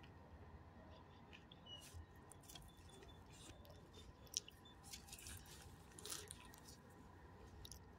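Near silence, with faint scattered crunches and clicks from a dog moving about on gravel and mouthing a tennis ball. One sharper click comes a little past the middle.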